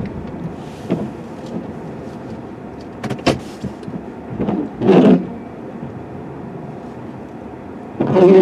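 Snow plow truck working a driveway in deep, heavy snow: the truck running steadily under several sharp knocks and clunks, with two short whirring bursts, one about five seconds in and one at the very end.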